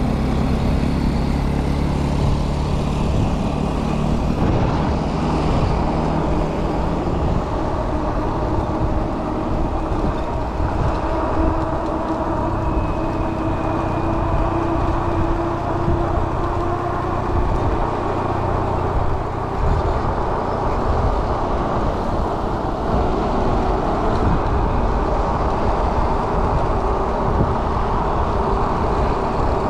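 Steady motor vehicle engine drone mixed with road noise, its pitch wavering slightly.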